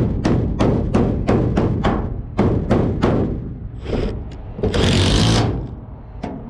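Hammer blows on the camper's body, hollow knocks about three a second for the first three seconds or so. A short burst of harsh high noise comes just before five seconds in and lasts under a second.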